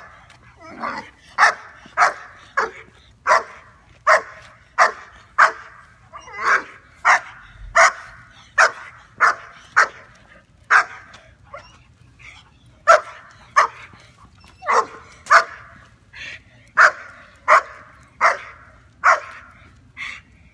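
Young German Shepherd barking over and over at a passing dog, about one sharp bark every half second to a second: dog-reactive barking.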